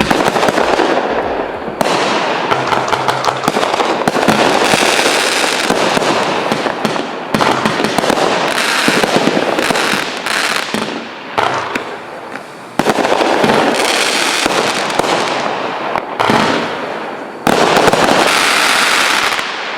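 Calavera Bandidos 48-shot standard aerial finale set firing: a dense run of aerial shells launching and breaking with loud reports, one on top of another, amid continuous crackling. The level jumps suddenly every few seconds.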